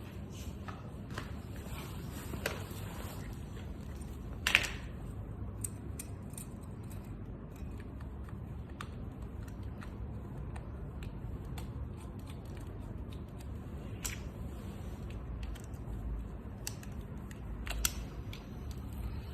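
Scattered small clicks and clinks of tools and parts being handled, with a sharper clink about four and a half seconds in and another near the end, over a steady low rumble.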